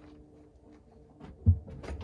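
A dull thump about one and a half seconds in, among faint clicks and a faint steady tone.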